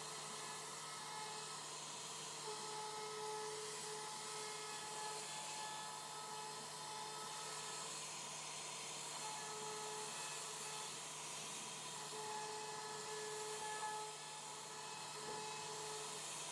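CNC router's high-speed spindle carving a wooden door panel: a steady high whine over a hiss. The whine comes and goes in stretches of a second or two as the bit works the wood.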